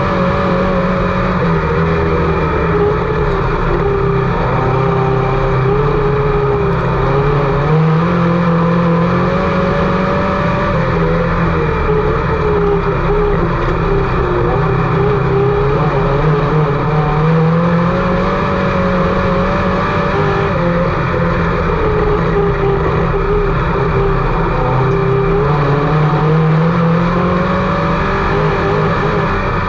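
IMCA Sport Mod race car's V8 engine at racing speed on a dirt oval, its pitch climbing as it accelerates and dropping as it backs off, in a cycle that repeats about every eight to nine seconds.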